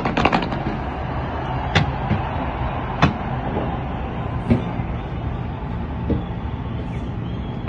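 Fireworks exploding: a few sharp single bangs, about two, three and four and a half seconds in, over a steady noisy din.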